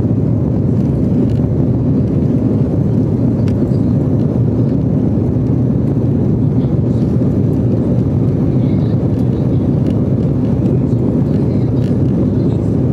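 Steady low rumble of an Embraer 195's twin General Electric CF34-10E turbofans and airframe noise, heard inside the cabin as the airliner rolls along the runway.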